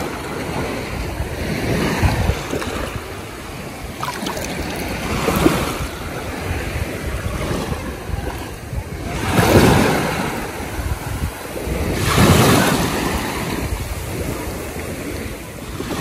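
Small sea waves breaking and washing up a shallow sandy shoreline, the wash swelling and fading in about four surges, the loudest about halfway through.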